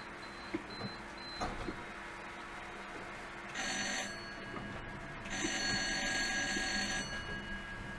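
Tram's electric warning bell rung twice, a short ring of about half a second and then a longer ring of nearly two seconds, warning a pedestrian crossing the track just ahead.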